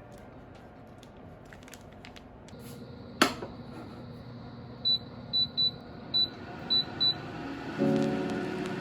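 An electronic appliance's keypad being worked: a sharp click, then six short high-pitched button beeps. A low hum starts near the end as the appliance switches on.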